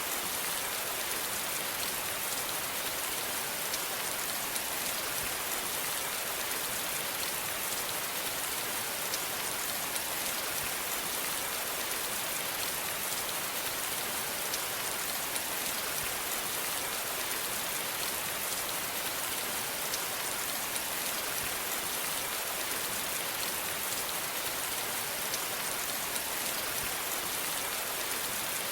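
Steady rain falling and pattering on a surface, an even hiss with fine drop ticks throughout and no change in intensity.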